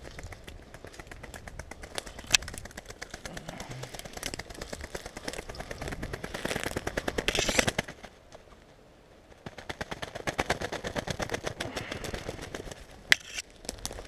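Shot ruffed grouse beating its wings rapidly in the dry leaves, a fast even flutter in two long spells with a pause between. There are a couple of sharp snaps.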